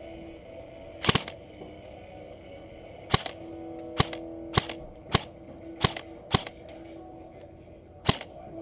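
Airsoft gun fired in single shots, about eight sharp cracks at an uneven pace, two of them close together near the start.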